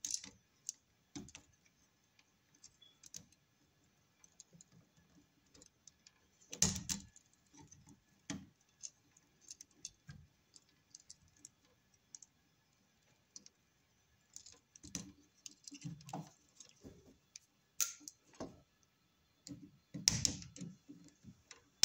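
Faint, scattered clicks and taps of hand tools and copper wire being handled at an electrical outlet as a wire is bent into a loop around a terminal screw. There are louder knocks about 7 seconds in and again near the end.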